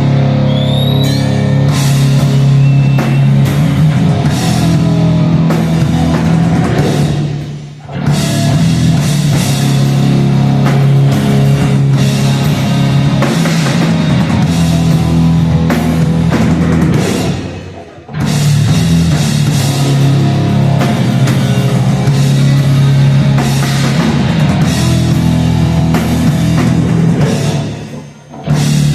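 Live heavy rock band playing an instrumental passage, with drum kit and cymbals driving a loud, dense band sound. The band stops together for an instant three times, about 8, 18 and 28 seconds in, then crashes back in.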